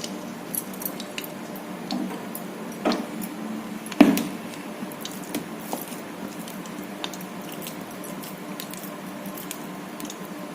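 Kitchen handling sounds from utensils: scattered light clicks and ticks, with a sharp knock about four seconds in, over a steady low hum.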